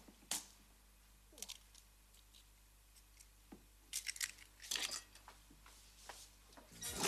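Faint, scattered rustles and light clicks of kitchen things being handled, with a short cluster of crinkling about four seconds in.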